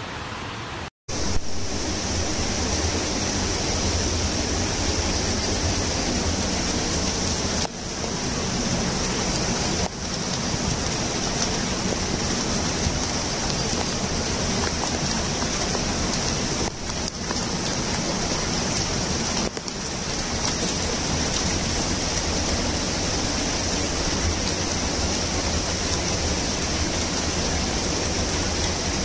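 Steady rushing of a swollen, fast-flowing floodwater river mixed with heavy rain. The sound cuts out for a moment about a second in and dips briefly a few more times.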